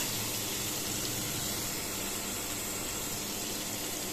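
Taro pieces and ground spice paste sizzling steadily in hot oil in a non-stick pan, with a low steady hum underneath.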